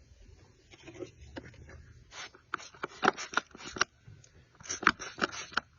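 Trigger spray bottle spritzing soapy water onto an RV propane pigtail hose connection to check it for a leak: about a dozen quick squirts, in a run starting about two seconds in and another near the end.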